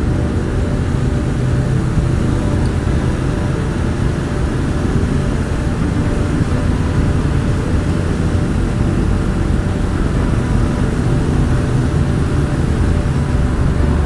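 Honda NC750X's parallel-twin engine running at a steady cruise inside a road tunnel, mixed with wind and road noise from the motorcycle.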